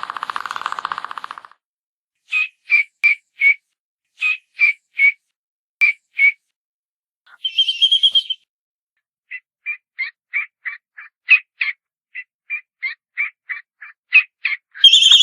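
Albatross calls: a buzzy call at the start, then short sharp notes in groups of three or four, a longer call about eight seconds in, and a quicker run of short notes. A louder call comes at the very end.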